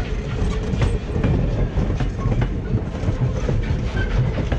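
Passenger coaches rolling past at close range, their steel wheels rumbling and clicking over the rail joints.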